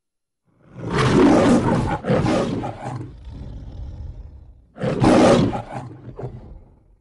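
Lion roaring in the MGM studio logo: a long roar starting about half a second in, breaking once and fading, then a second roar about five seconds in.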